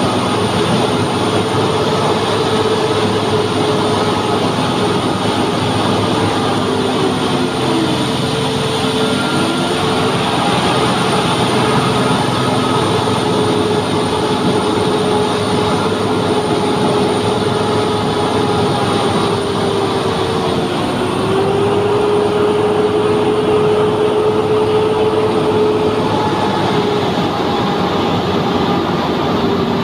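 Heavy diesel truck engine and drivetrain running steadily under way, with a whining tone that drops in pitch twice and climbs back.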